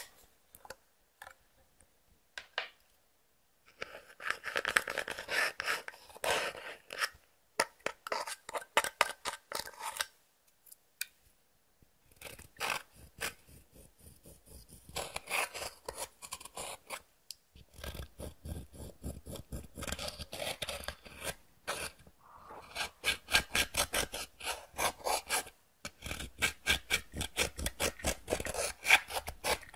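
Clear slime being squeezed and stretched by hand, giving dense runs of small sticky clicks and pops. A few scattered clicks come first, then several long bursts with short pauses between them.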